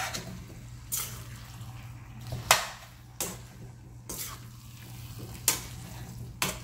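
Metal spatula stirring and scraping moringa drumstick pieces, onions and spices around a stainless steel frying pan, with a scrape or clink against the pan roughly once a second. A steady low hum runs underneath.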